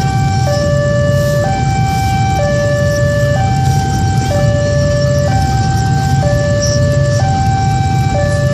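Level-crossing warning alarm sounding, alternating between two tones and switching pitch about once a second, over a low steady rumble as a train approaches.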